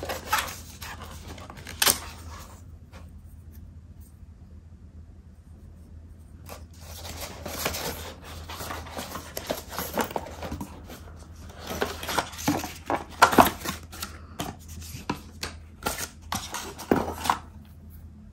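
Hands handling a cardboard box and its foam insert, pulling cables out and unwinding a coiled charging cable: irregular rustling, scraping and small clicks, with a lull of a few seconds after the first bout.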